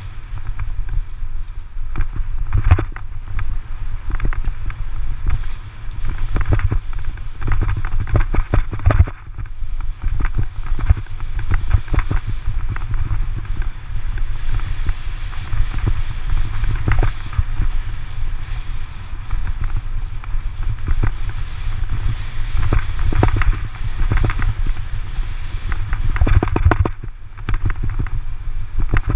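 Wind buffeting a moving camera's microphone, a steady low rumble, with frequent sharp rattles and knocks from the camera jolting over a rough dirt road.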